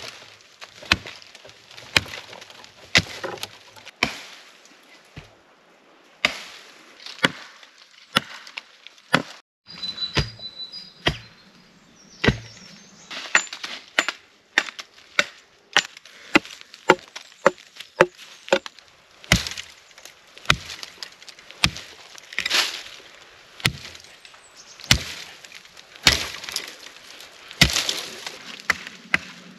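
Wood being chopped: sharp, irregular chopping strokes, roughly one to two a second.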